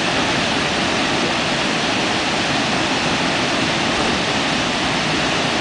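Water pouring over Brooks Falls, a low, wide river waterfall, rushing steadily and loudly.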